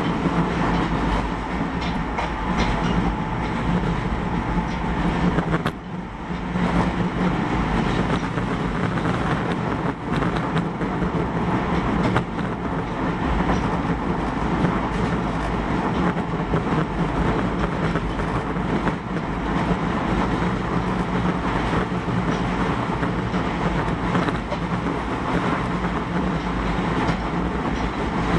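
Onboard running sound of an Osaka Metro 31 series subway train travelling at speed: a steady rumble of wheels on rail with a low hum and scattered clicks from the track, dipping briefly about six seconds in.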